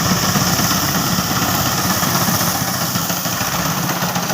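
Tractor diesel engine running steadily while it drives a wheat reaper cutting the standing crop.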